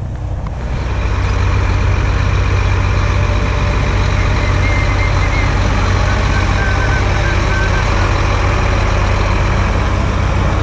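Truck engine running steadily, a constant low hum.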